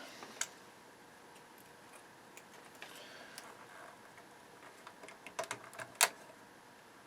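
Small sharp clicks and light handling noise of alligator clips and wires being fitted to speaker terminals, with a cluster of clicks near the end and one louder snap about six seconds in.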